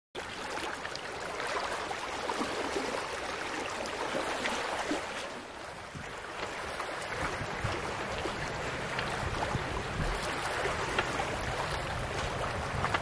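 Small waves lapping on a pebbly loch shore with wind, a steady rushing wash with a low, uneven rumble of wind on the microphone.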